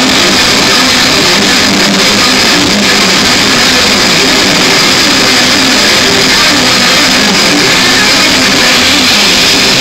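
Loud rock music with electric guitar, recorded so hot on a phone that it comes out as a dense, distorted wall of sound with no let-up.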